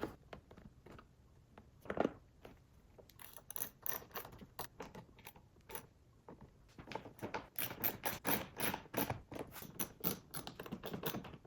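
Recliner-handle screw on the seat trim being driven with a hand tool: a run of small clicks, sparse at first and coming thick and fast in the second half.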